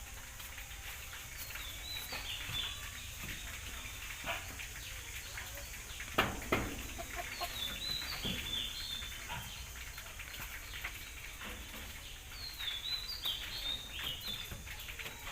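Chickens clucking, with three bursts of quick, high chirping. There are two sharper knocks about six seconds in.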